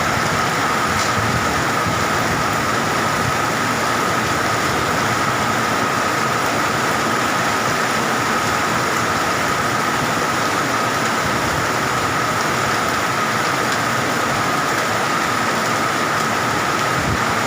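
Heavy rain and strong gusting wind of a summer storm, a loud steady rush, with a thin steady high whine running through it.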